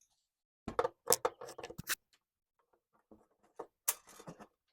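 Hand tools clicking and clinking on metal as the mower's fuel tank is unbolted: a quick cluster of sharp clicks about a second in, then scattered lighter taps with one sharp click near the end.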